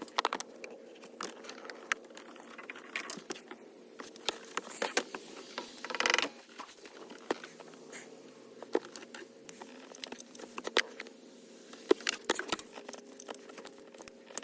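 Hand tools clicking and clinking on metal as a wrench works at the stuck positive-cable bolt on the alternator: irregular small clicks and knocks, with a short louder rasp about six seconds in.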